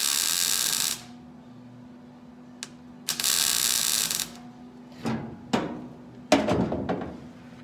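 Welding arc crackling in two bursts about a second long, one at the start and another about three seconds in, as tack welds go onto new trunk-pan sheet metal. A steady low hum runs between them, and two shorter noises come near the end.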